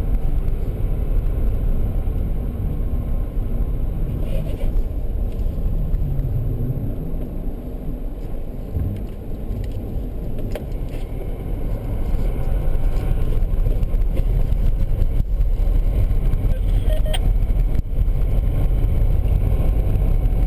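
Car driving on a snow-covered road, heard from inside the cabin: a steady rumble of engine and tyres, louder in the second half.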